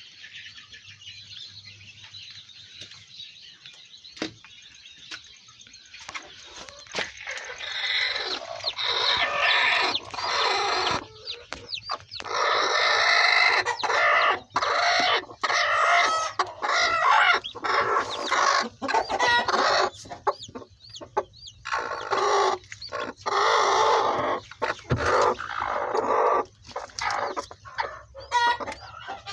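Aseel chickens clucking and squawking. The calls are faint at first, then loud in repeated stretches of a second or two from about six seconds in.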